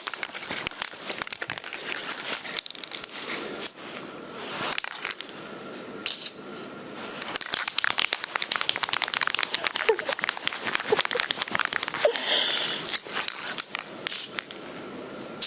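Aerosol spray-paint can in use: crinkly, crackling handling noise, with short hissing sprays of white paint about six seconds in and again near the end.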